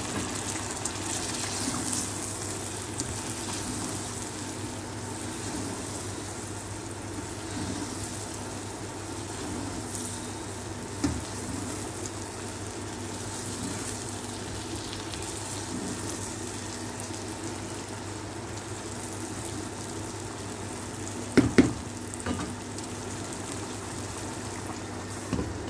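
Chicken korma curry sizzling and bubbling in a nonstick pan as it is stirred with a spatula. A couple of sharp knocks come about three-quarters of the way through, and another comes near the end.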